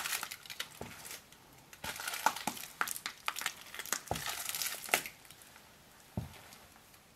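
A foil wrapper crinkling and crackling under sneaker soles as the feet shift on it, with a soft footstep thump on the tile about four seconds in and another about six seconds in as the feet step off.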